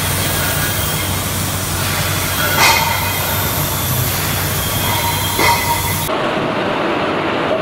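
CNC thread-cutting machine for gas cylinders running: a steady mechanical hum under a broad hiss, with two brief metallic squeals a few seconds apart. About six seconds in the sound turns suddenly duller.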